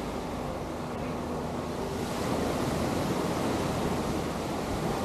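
Atlantic surf washing onto a sandy beach, a steady rush of breaking waves that swells slightly about two seconds in, with some wind on the microphone.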